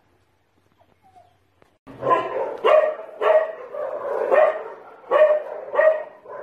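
Dog barking repeatedly, about seven barks in quick succession, starting about two seconds in.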